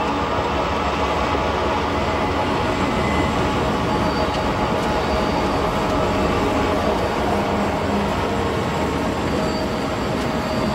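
Diesel freight locomotives passing: a steady engine drone over a continuous train rumble.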